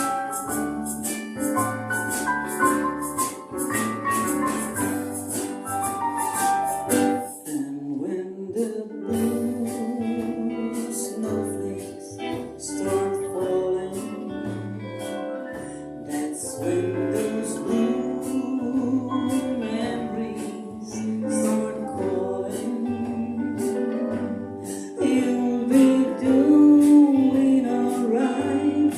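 Live band with a singer performing a slow Christmas song: a shaker keeps a steady beat over a bass line, with sung melody.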